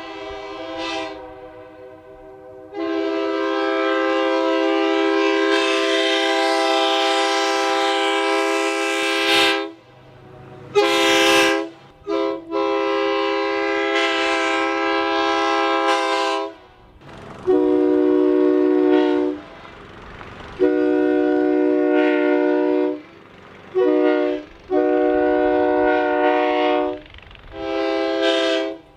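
Train horn sounding a series of blasts: one long blast, then several shorter ones of varying length with brief gaps between them.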